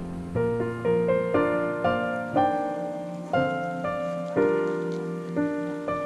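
Slow solo piano music, single notes and chords struck about every half second to a second and left to ring and fade.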